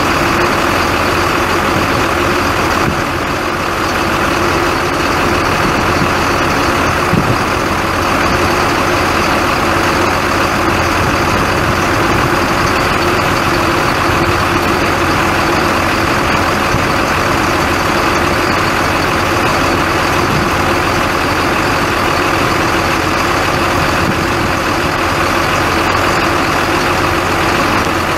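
Caterpillar 3116 inline-six turbo diesel engine of a Chevrolet C6500 truck idling steadily.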